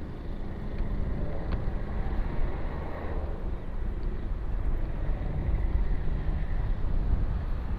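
Motorcycle engine running with a steady low rumble, mixed with wind noise on the microphone.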